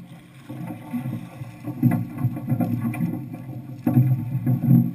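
Cast net full of mullet being hauled out of the water and over a boat's side: water splashing and a few sharp knocks, the clearest about two and four seconds in, over a low uneven rumble.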